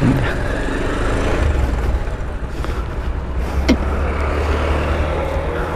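Motorcycle engine running as the bike rolls slowly on a rough road, with a steady low wind rumble on the microphone and one short tick about two-thirds of the way through.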